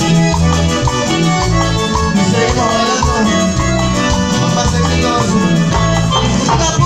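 Live cumbia band playing through the stage PA: electric guitars, keyboard and percussion over a steady, repeating bass line.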